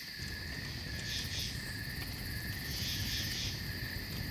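A night chorus of insects, likely crickets: a steady high trill with a second, higher trill that swells and fades about every half second, over a low rumble.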